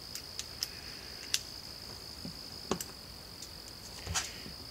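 Sparse light clicks and taps of hands handling the plastic housing of a cordless impact driver, with a small cluster of clicks near the end as it is picked up, over a steady high-pitched whine.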